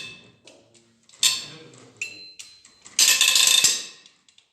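Three short bursts of a power tool working on metal, each about a second long with a metallic ring, roughly two seconds apart.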